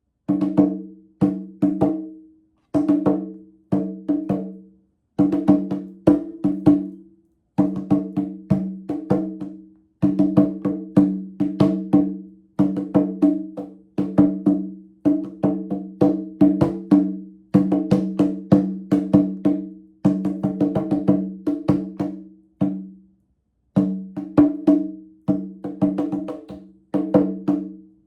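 Percussion music: a struck instrument with two low pitches, played in quick uneven groups of strokes, each note ringing out briefly, with a few short pauses between phrases.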